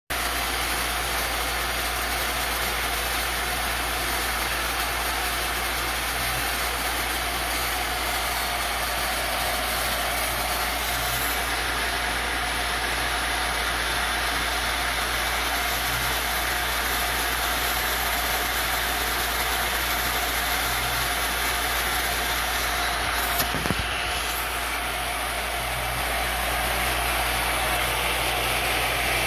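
The spindle motor of a CNC-converted X2D mini milling machine runs steadily while its end mill cuts into a wooden board. A low hum changes level every few seconds, and there are a few sharp clicks about twenty-three seconds in.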